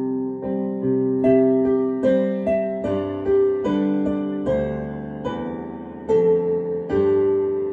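Digital piano being played: chords and melody notes struck every half-second to second, each left to ring and fade.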